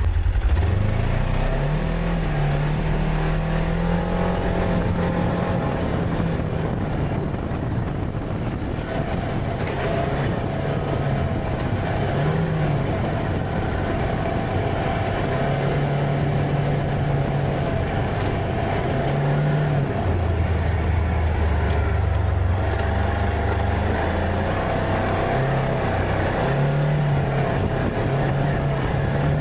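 Vehicle engine pulling away, its note rising at the start, then running on with the revs rising and dropping several times as it is driven, over wind and road noise.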